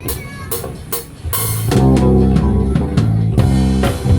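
Rock band music: four drum hits, then bass and guitar chords come in together with the drums.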